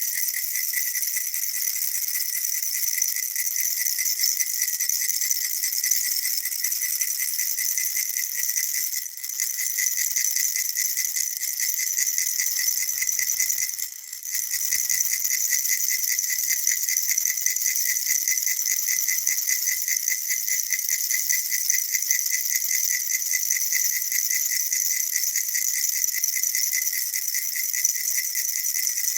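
Baby rattle shaken steadily and fast, a continuous high, hissing rattle, with two brief dips about nine and fourteen seconds in.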